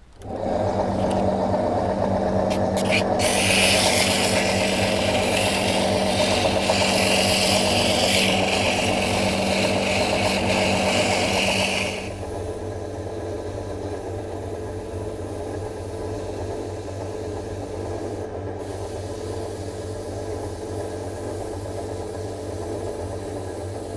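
Small electric lathe motor running with a steady hum while sandpaper is pressed against a spinning walnut pen blank, giving a steady sanding hiss. About halfway through, the hiss drops away and the motor hum carries on more quietly.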